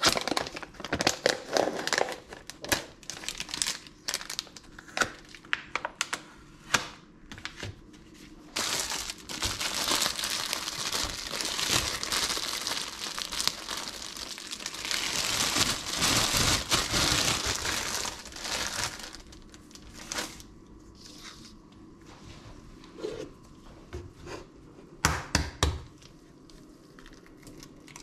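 Plastic food packaging crinkling and tearing in gloved hands: a run of sharp crackles as the film is peeled off a tray of sliced sausage, then about ten seconds of dense, continuous crinkling from handling a plastic bread bag, and a few scattered clicks near the end.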